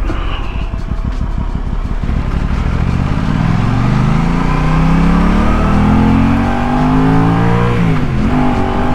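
Aprilia RS660's parallel-twin engine pulling hard under acceleration, its pitch rising steadily, with a quick drop and recovery near the end as it shifts up a gear. Wind rushing over the helmet microphone is heard throughout, plainest in the first couple of seconds.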